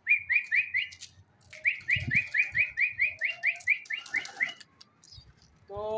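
A man whistling a pigeon-recall call: short rising whistle notes about four a second, a run of four, a short pause, then a longer run of about a dozen. The whistle is the signal that brings the trained pigeon flying to his hand. There is a low thump about two seconds in.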